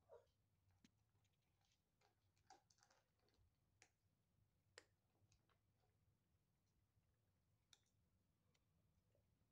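Faint, irregular crunching clicks of Bombay kittens chewing dry kibble.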